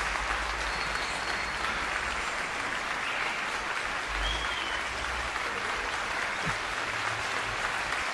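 Steady hiss of background noise, with low rumbles now and then.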